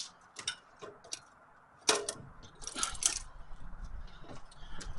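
Bicycle chain and rear wheel being worked free of the e-bike's frame: scattered light metallic clicks and clinks, a sharper clack about two seconds in, and a short rattle of chain links soon after.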